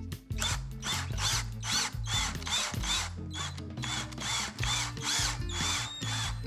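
Cordless drill spinning bare copper wires clamped in its chuck to twist them together. The motor whirs in short repeated spurts, about three a second, its pitch rising and falling each time, over background music.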